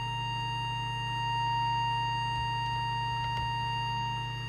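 Steady test tone from an audio oscillator, with a low hum underneath, modulating an FM CB transmitter while its deviation trimmer is being set. A couple of faint clicks come about halfway through.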